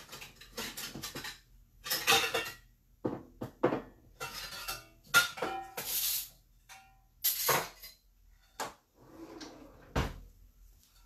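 Kitchenware being handled: pots, lids and utensils clattering and clinking in an irregular run of knocks, some with a brief metallic ring, and a heavier thump near the end.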